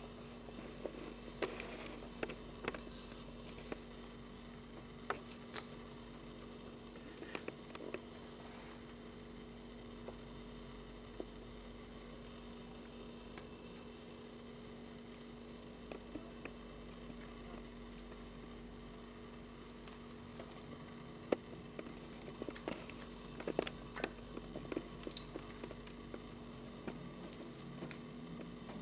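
Steady low electrical hum with soft scattered taps and rustles of kittens pawing and batting at a rope on a rug, busiest near the start and again in the last third.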